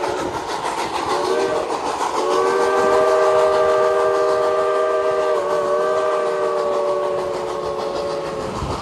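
Steam whistle of Reading & Northern 425, a Baldwin 4-6-2 Pacific, sounding a chord of several tones for a grade crossing. A blast ends just at the start, a short blast comes about a second in, and a long blast is held from about two seconds in until near the end, the close of the long-long-short-long crossing signal. Beneath it the passenger cars roll along the rails with a clickety-clack.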